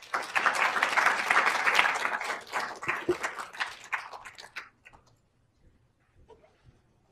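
Audience applauding in a lecture hall, starting at once, strongest for about three seconds and dying away by about five seconds in.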